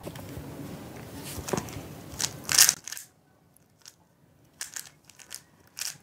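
3x3 Rubik's speed cube being turned fast during a solve: the plastic layers click and clack in quick bursts.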